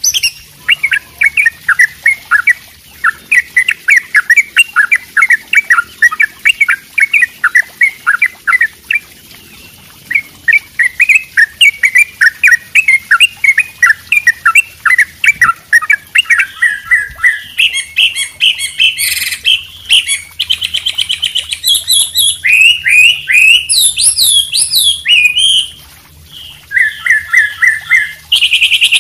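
Songbirds singing, from a mixed recording of white-rumped shama, wambi and yellow-vented bulbul song: a fast run of short repeated chirps for about the first seventeen seconds, then higher, more varied phrases with quick trills.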